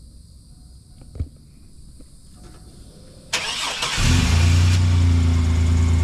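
2004 Chevy S10 Blazer Xtreme's 4.3-litre V6 cold-started by remote start. The starter cranks briefly a little over three seconds in, then the engine catches and settles into a steady idle, with none of the lifter knock it had before: sounds normal.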